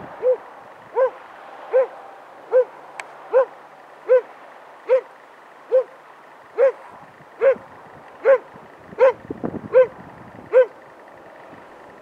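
A dog barking in a steady, evenly paced series of about fourteen barks, a little faster than one a second. This is a search dog's trained bark indication (halsmelding), held at a found person during an area-search exercise.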